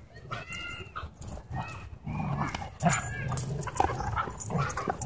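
Excited dogs jumping and tussling for a ball, with short high-pitched whines about half a second in, and scuffling and knocks.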